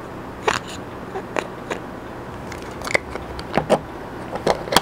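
Small hard-plastic clicks and taps as the parts of a plastic figurine are handled and fitted together, irregular and short, several close together in the last second and a half.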